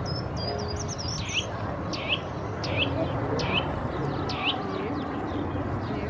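A bird calling: a quick high twitter, then a series of five or so sharp whistles that each sweep steeply down in pitch, about one every three-quarters of a second, over a steady outdoor background hiss.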